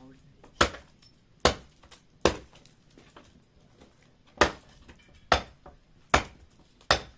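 Axe chopping firewood: seven sharp strikes at about one a second, with a pause of about two seconds in the middle.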